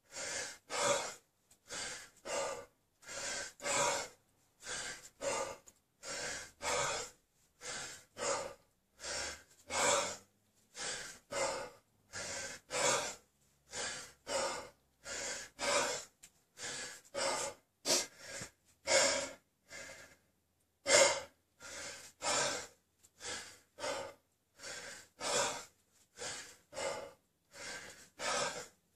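A man breathing hard and fast through the mouth under the strain of a 32 kg kettlebell snatch set: short sharp breaths, a little more than one a second, with a brief pause about two-thirds of the way through.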